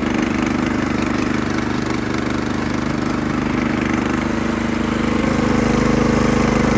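Small gasoline engine of a tracked dump barrow running steadily while the machine drives in first gear, its note shifting and getting a little louder about five seconds in.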